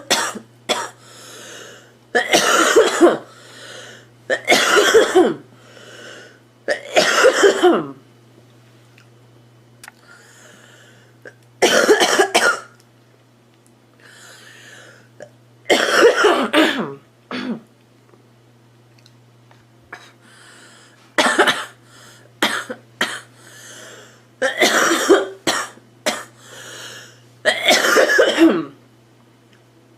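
A girl coughing in about nine separate coughs or short bouts, with breaths drawn in between.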